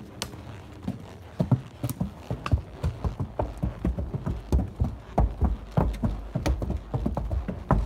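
Hooves of two walking horses knocking on the boards of a wooden plank footbridge: an uneven, overlapping clip-clop of several hoof strikes a second, louder from about a second and a half in.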